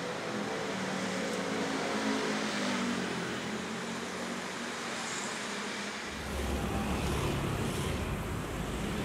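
Street traffic: motorcycles and cars passing, their engines running as a steady wash of noise. A deeper low rumble comes in about six seconds in.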